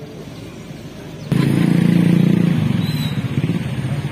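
Small engine running close by, coming in suddenly about a second in as a steady low hum that eases a little after another second.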